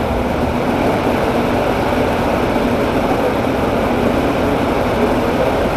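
Steady mechanical background noise of a repair shop, with a faint low hum underneath.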